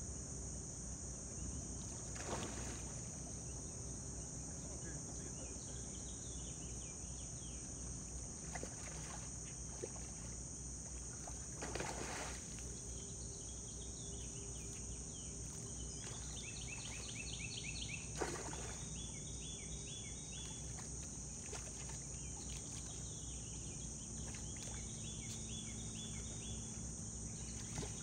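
Steady high-pitched drone of crickets over a low rumble of river current below a dam, with a few short splashes as a hooked carp thrashes at the surface near the bank. Bursts of repeated chirping come in the second half.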